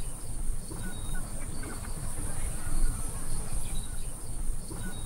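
Looping AI-generated nature ambience sound effect: a steady high insect drone like crickets over a low rumbling bed, with a few faint short chirps. It starts abruptly at the beginning.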